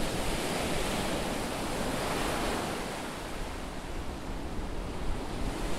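Atlantic surf breaking and washing up a sandy beach: a steady rushing noise.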